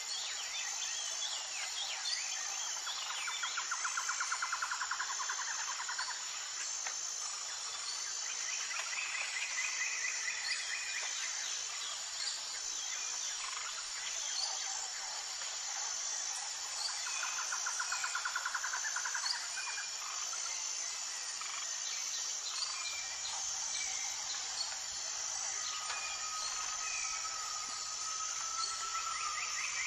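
Outdoor nature ambience: a steady high insect chorus with a regular pulsing note, scattered bird chirps, and a rapid trill of a couple of seconds a few seconds in and again past the halfway mark.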